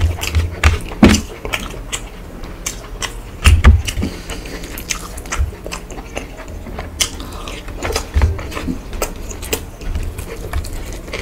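Close-miked eating with the hand: chewing with many wet mouth clicks and smacks, along with fingers mixing rice and curry on a steel plate. A few duller low thuds come about a second in, near 3.5 seconds and near 8 seconds.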